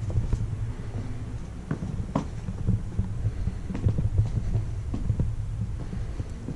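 Low rumble with irregular soft thumps: footsteps and handling noise picked up by an action camera carried while walking.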